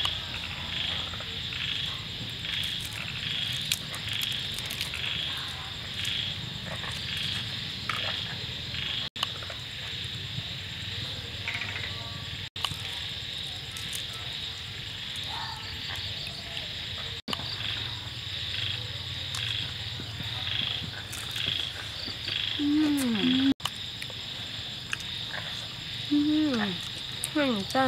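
Night chorus of frogs and insects: a steady, high pulsing trill repeating about twice a second over a low hum.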